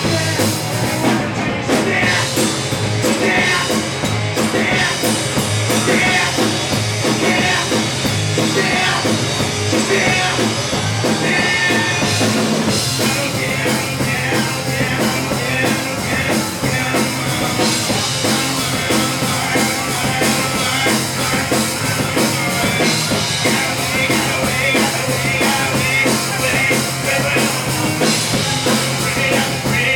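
Live rock band playing a loud, fast grunge cover on electric guitar, bass and drum kit.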